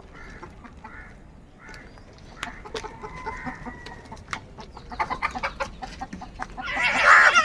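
Crows calling, with several short calls and sharp clicks, then a loud harsh caw with a wavering pitch near the end.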